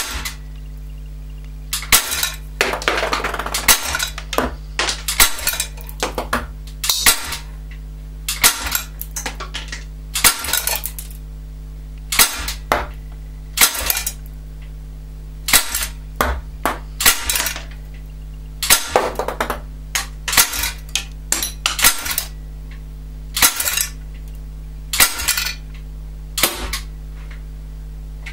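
UX TDP 45 CO2 pistol fired shot after shot, about one shot every second and a half, each sharp pop followed by the clink and rattle of a 4.5 mm steel BB striking the metal pellet trap. A steady low hum runs underneath.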